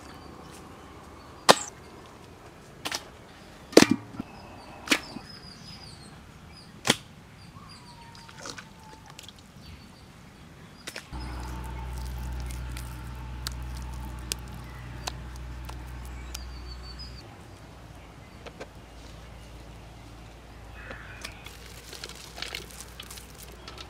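Chunks of raw beef dropped one by one into an aluminium bowl: five sharp knocks in the first seven seconds, with birds chirping faintly in the background. A low steady hum runs for about six seconds in the middle, and near the end there is a soft patter as spice paste and grated ginger-garlic fall onto the meat.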